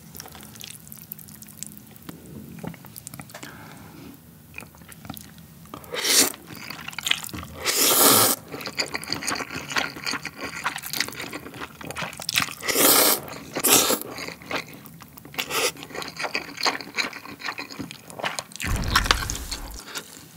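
Close-miked eating of chewy, sauced cold noodles: several loud slurps of noodles, with wet chewing and lip-smacking between them. Near the end comes a heavy huff of breath as the eater reacts to the spicy heat.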